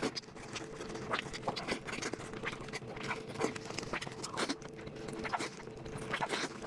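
Close-miked eating: irregular wet clicks, smacks and crunches of chewing, several a second, over a faint steady hum.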